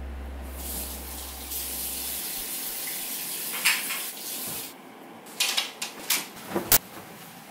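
Bathroom sink tap running steadily for about four seconds, then shut off. Near the end come a few short swishes and a sharp knock as hotel-room curtains are pulled open.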